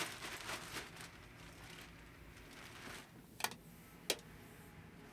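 A plastic bag rustling briefly, then two sharp clicks about two-thirds of a second apart as the metal toggle light switches on a sleeper-cabin wall panel are flicked.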